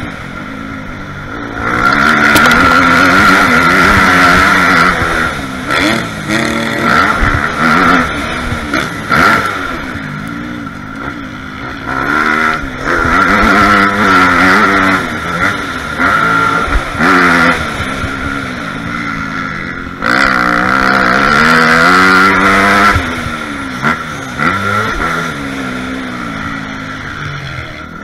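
Dirt bike engine heard from the rider's helmet camera, revving up hard under throttle and falling off between, rising and dropping in pitch through the gears over and over, with three long loud pulls and quieter dips between them.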